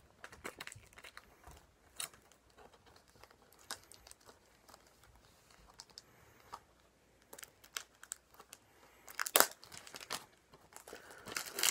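Packaging crinkling and rustling as a DVD package is handled and unwrapped: scattered short crinkles and clicks, with a louder rustle about nine seconds in.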